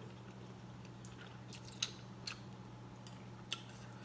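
A person chewing food with the mouth close to the microphone, a few short sharp clicks and smacks standing out, over a steady low hum.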